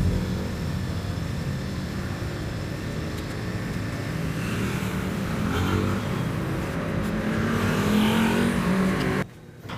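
Street traffic with a motor vehicle's engine running close by, its pitch rising from about seven seconds in as it accelerates. The sound cuts off abruptly near the end.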